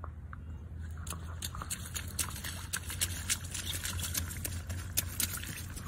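A small child's rubber rain boots splashing and stepping through a shallow puddle on wet gravel: a run of irregular small splashes and crunches. A steady low rumble lies underneath.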